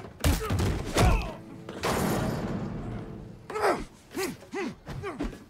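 Fight-scene sound effects: two heavy punch or kick impacts with deep thuds about a quarter second and a second in, then a rough noisy crash lasting over a second as a body is thrown down onto metal grating, followed by several short grunts falling in pitch.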